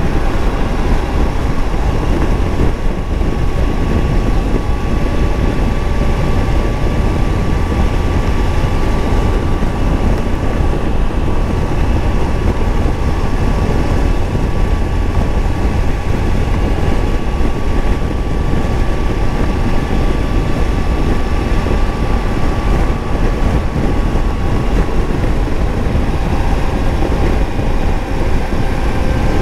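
Triumph Tiger 900's three-cylinder engine running steadily on the move, under a constant rush of noise, with a steady whine that holds and then fades out near the end.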